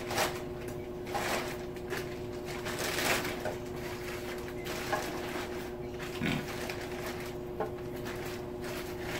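Kitchen handling noise: soft scattered knocks and rustles of items being moved about, over a steady low appliance hum.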